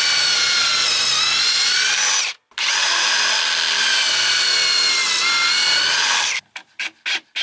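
Cordless drill running a pocket-hole bit through plywood in a Kreg jig: a steady high whine that stops for a moment after about two seconds, then starts again. Near the end it gives way to a few short bursts.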